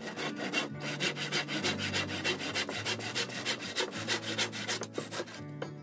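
Handsaw cutting through a small block of wood in rapid, even back-and-forth strokes, stopping shortly before the end.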